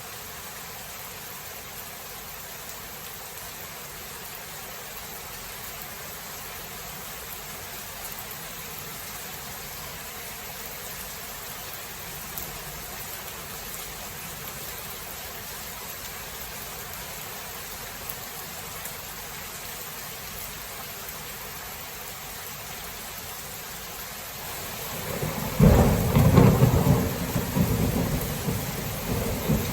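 Steady rain hissing, then a loud rumble of thunder breaks in near the end and rolls on.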